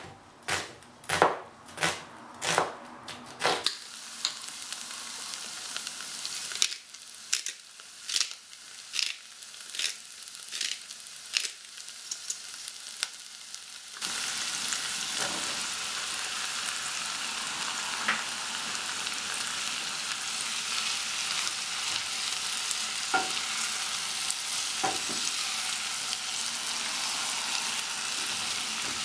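Sharp taps or knocks, about two a second, with a short lull partway through. About halfway, a steady hiss starts suddenly and carries on with an occasional faint click.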